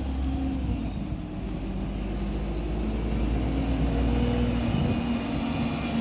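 Solaris Urbino city bus driving past close by, its drive hum growing louder as it approaches.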